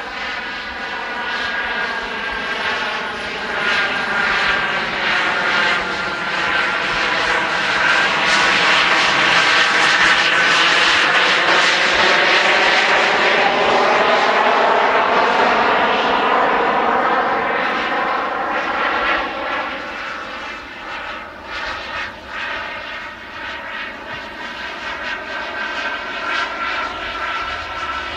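Four JetsMunt M166 model jet turbines of a large RC Airbus A380 running in flight. They grow steadily louder to a peak about halfway through as the plane passes by, then fade as it flies away.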